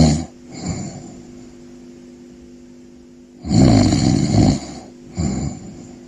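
Snoring in a slow, even rhythm. A loud snoring in-breath ends just after the start and is followed by a softer breath out. About three and a half seconds in comes another loud snore, then a short, softer breath out, all over a faint steady hum.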